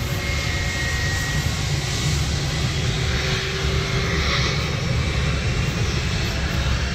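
Jet engines of a Jetstar Airbus A320-family airliner at takeoff thrust as it speeds down the runway and rotates: a steady, deep rumble with a broad hiss above it.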